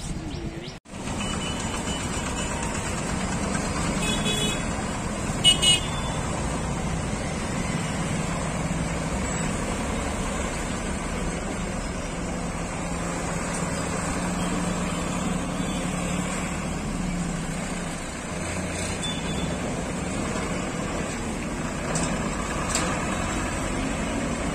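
Road traffic moving over a railway level crossing: truck and motorcycle engines running steadily, with two short horn toots about four and five and a half seconds in, the second the loudest.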